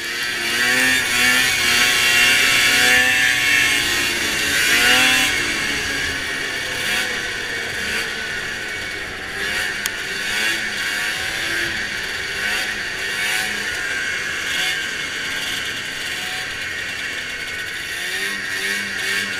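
Racing snowmobile engine running hard at speed, its pitch rising and falling over the first five seconds and then holding steady, under a strong hiss of wind and track noise.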